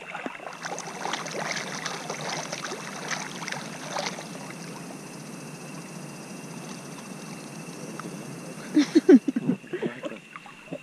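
River water splashing and lapping against an action camera held at the surface, with a few loud gurgling sloshes about nine seconds in as the water washes over the camera housing. A steady high-pitched tone runs underneath.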